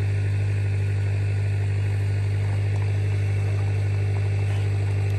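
Steady low hum of a running engine, even in level throughout.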